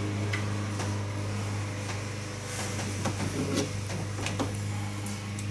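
Scattered light clicks and handling noises as rubber weather stripping is cut and handled, over a steady low hum.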